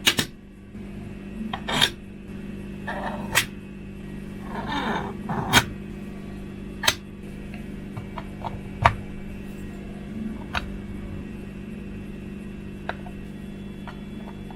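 Irregular sharp clicks and knocks of hard 3D-printed PLA plastic parts being handled and fitted together, with a short scraping about five seconds in, over a steady low hum.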